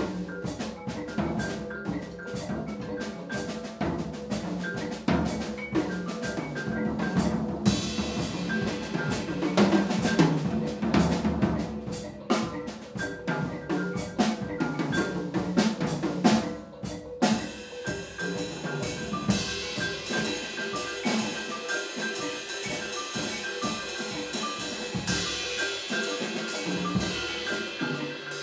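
Vibraphone and drum kit playing a busy improvisation together: rapid drum and rim strokes under ringing, held vibraphone notes. Cymbals swell in about a quarter of the way in and again after a brief drop past the middle.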